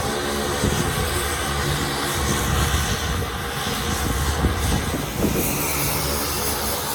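Fixed-wing aircraft engines running steadily, a loud, continuous low drone.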